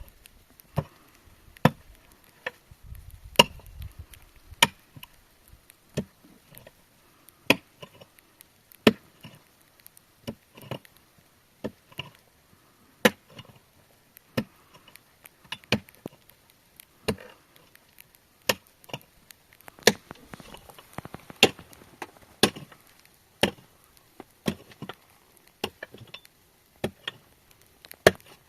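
Repeated sharp chopping or knocking strikes, roughly one a second at an uneven pace.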